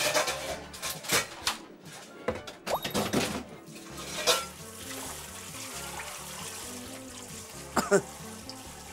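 Background music over kitchen sounds: a few clatters of dishes and utensils in the first few seconds, then water running steadily from a sink tap, with a couple of knocks near the end.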